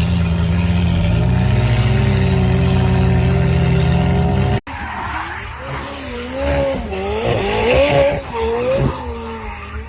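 McLaren 720S twin-turbo V8, tuned to about 1150 hp, running at steady revs. About halfway there is an abrupt cut, after which the engine note wavers up and down over tyre noise as the car slides on loose off-road ground.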